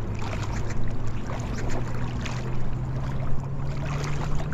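Legs wading through shallow river water, with irregular sloshing splashes at each step. Under it, a steady low engine hum that rises slightly in pitch.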